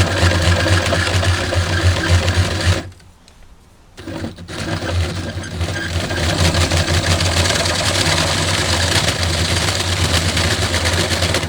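Power drill spinning a hole saw, with its centre pilot bit taken out, into a clamped laminate board. It runs steadily, stops about three seconds in, then starts again a second later. Without the pilot bit the saw rattles and wanders across the board.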